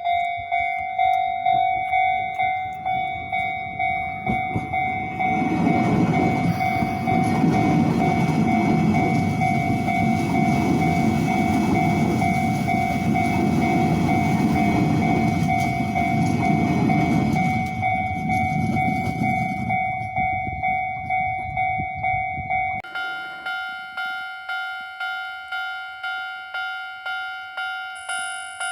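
Japanese level-crossing warning bell ringing in a steady repeated ding, with a train passing over the crossing from about five seconds in until about twenty seconds in, its rumble partly covering the bell. About twenty-three seconds in the bell's tone changes abruptly to a brighter, different pitch.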